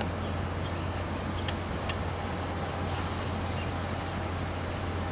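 Steady low rumble under an even wash of outdoor harbour noise, with two faint clicks about one and a half and two seconds in.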